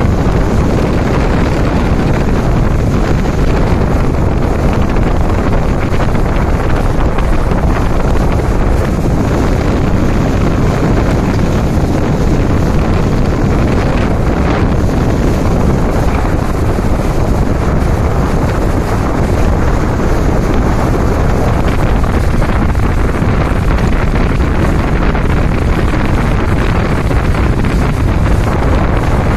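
Loud, steady wind buffeting the microphone aboard a center console boat running across open water.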